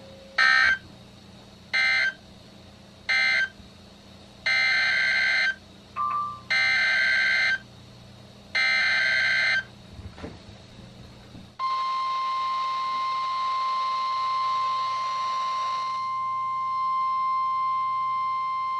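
NOAA Weather Radio SAME tones heard over weather radio receivers: three short bursts of digital warbling that mark the end of the last warning, then three longer bursts that carry the header of the next warning. About eleven and a half seconds in, the steady 1050 Hz warning alarm tone starts and holds, announcing a new alert.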